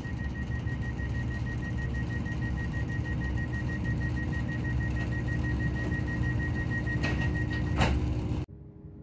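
Class 168 Clubman DMU's underfloor diesel engine idling while the train stands in the station, heard inside the carriage as a steady low rumble and hum, with a thin high tone over it. Two sharp clicks come near the end, then the sound drops abruptly to a quieter cabin hum.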